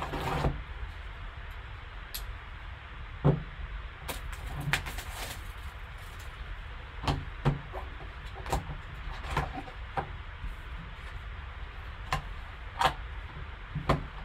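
Shrink wrap being slit and pulled off a cardboard trading-card box, then the box handled and its lid opened: a burst of crinkling at the start, then scattered short crackles, taps and clicks of plastic film and cardboard.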